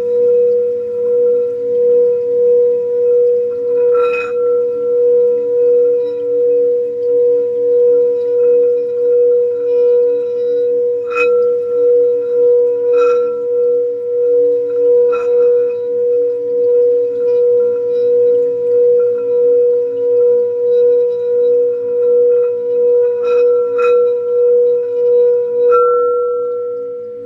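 Singing bowl held in a steady, sustained hum that swells and fades about one and a half times a second, with a few light clicks. Near the end it is left to ring and fades.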